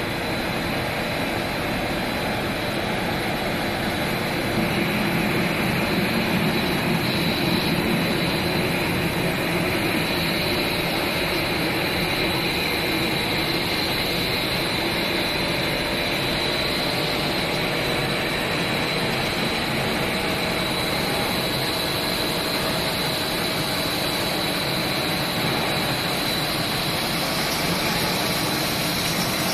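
Industrial TPE extrusion line running: a steady machinery drone from the large electric drive motor, gearbox and extruder, with a constant high whine.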